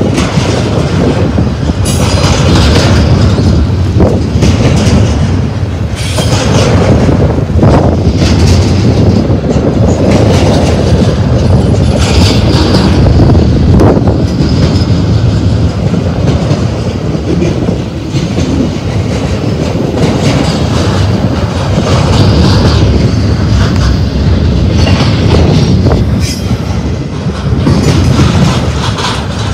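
Double-stack intermodal train's well cars rolling past at close range: a loud, steady rumble of steel wheels on rail, with repeated clacks as the wheel sets cross rail joints and a light wheel squeal at times.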